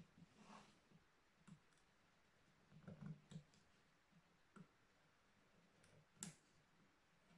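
Faint, scattered scrapes and clicks of a hand carving knife cutting into a wooden relief panel, with a sharper click about six seconds in.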